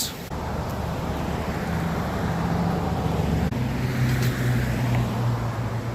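Motor vehicle engine running steadily with road or motor noise; its low hum drops in pitch about three and a half seconds in.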